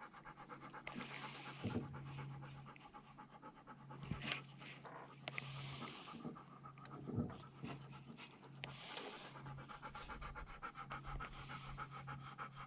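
Labrador retriever panting steadily and softly.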